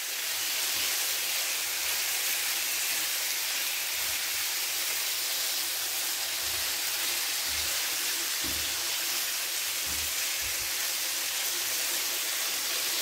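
Raw chicken pieces sizzling in hot oil with ginger-garlic paste in a nonstick frying pan, a steady hiss, while a silicone spatula stirs them. A few soft low bumps come now and then.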